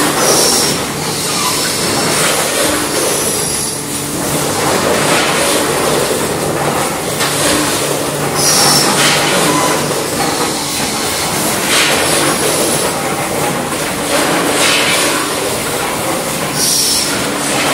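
Multihead combination weigher and packaging machinery running: a steady mechanical hum and clatter, with a burst of noise carrying a short high squeal every few seconds, loudest about half a second in, midway and near the end.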